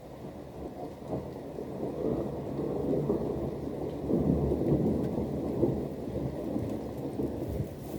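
Thunder rumbling: a low roll that swells over the first few seconds, peaks around the middle and eases slightly, with rain falling steadily underneath.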